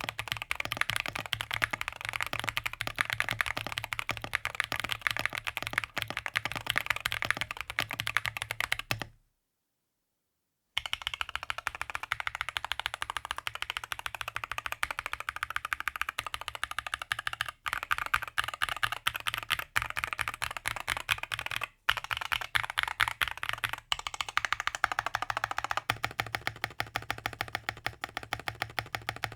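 Fast continuous typing on a DAXA M61/M64 mechanical keyboard, a dense stream of keystroke clacks. The sound cuts to dead silence for about a second and a half around nine seconds in, then resumes. Its tone shifts a few times later on.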